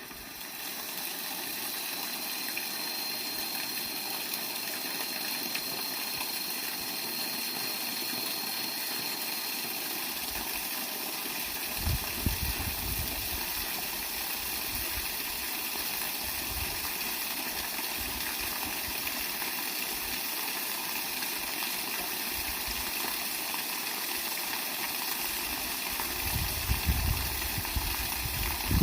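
Water from a bamboo waterfall pouring and splashing steadily into a fish pond. A few low bumps come about twelve seconds in and again near the end.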